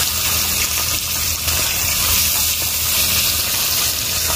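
Small fish deep-frying in hot oil in a kadhai, a steady loud sizzle.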